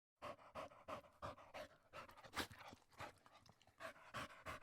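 A dog panting in quick faint breaths, about three a second, with a short pause past the middle.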